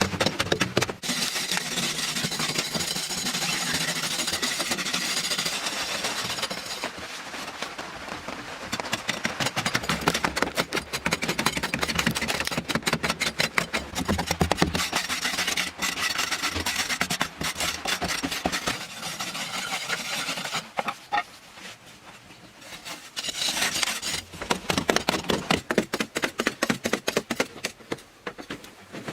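Fast repeated rubbing and rasping strokes, like a hard material such as wood being scraped or worked by hand. They ease off for a couple of seconds about three-quarters of the way through, then start again.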